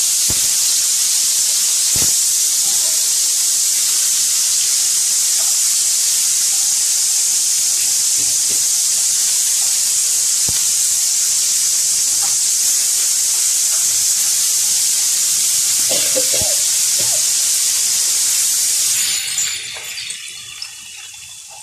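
Hilsa fish steaks frying in hot mustard oil in a steel pan: a steady, loud, high sizzle, with a few sharp clicks. The sizzle drops away suddenly about nineteen seconds in.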